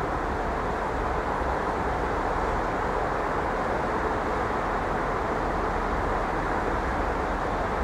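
Steady, even background noise of an outdoor railway station, with no distinct events, as an Irish Rail 8100 class DART electric multiple unit approaches from a distance.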